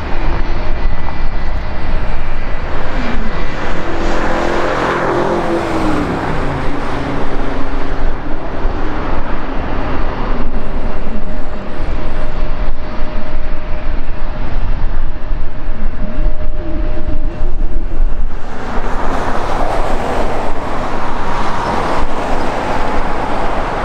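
Jet engines of a Boeing 757-300 on its landing rollout: a loud, steady rush, with a falling whine a few seconds in as the engines wind down.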